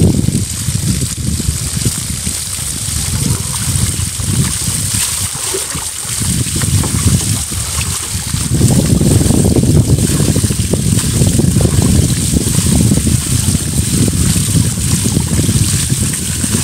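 Water running from a garden hose into a wheelbarrow of water while dyed wool is rinsed in it, a steady splashing that grows louder about eight seconds in as the wool is dunked and swished; near the end a bucket of water is poured in.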